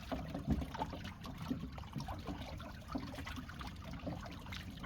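Many small, irregular splashes and trickles of water from crowded mackerel thrashing at the surface.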